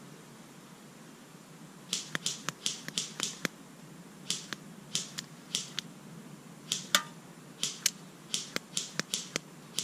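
A run of sharp, very short clicks in irregular clusters, starting about two seconds in, over a faint steady hiss.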